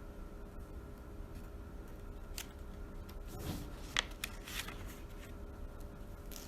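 Quiet room tone with a steady low hum, broken by a few faint clicks and a soft rustle in the middle, the sharpest click about four seconds in.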